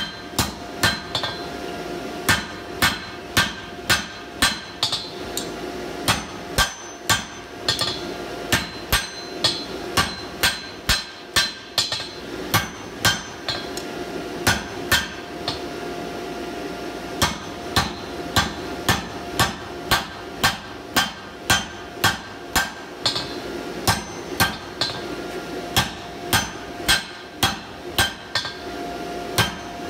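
Hand hammer striking a red-hot round steel bar on an anvil, about two blows a second with a couple of short pauses: knocking down the bolster while forging box jaw tongs. A steady hum runs underneath the blows.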